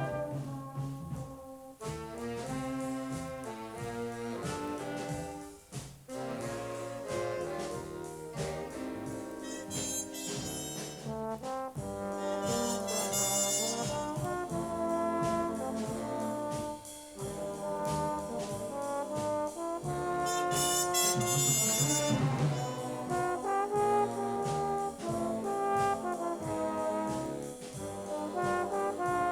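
A junior high school jazz stage band playing, led by its brass section of trombones and trumpets, with louder, brighter full-band passages about a third of the way in and again past the middle.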